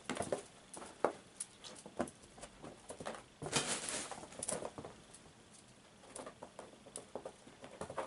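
Irregular soft taps and thumps of a kitten's paws on a carpeted floor as it pounces and leaps at a feather wand toy, with a rustle of the feather brushing the cloth sheet about three and a half seconds in.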